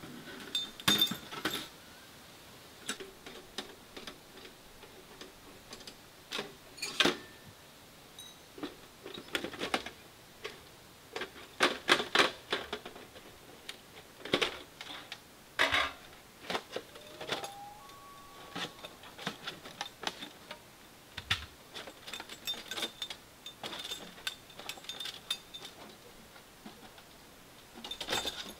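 Sheet-metal panels of a small portable wood stove clinking and clanking as it is taken apart by hand: irregular knocks and clicks, some with a light metallic ring.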